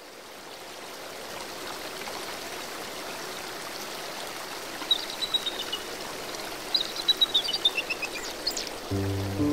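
A stream's steady rushing water fades in. A bird sings a descending run of short high notes about five seconds in and again around seven seconds. Music with held low chords begins near the end.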